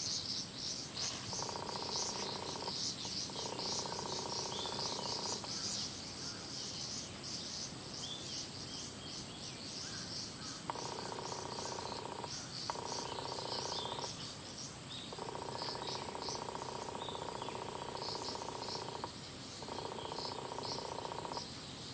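Cicadas shrilling steadily in summer, a dense pulsing high chorus with a constant high whine, while a lower buzzing drone cuts in and out in spells of a few seconds.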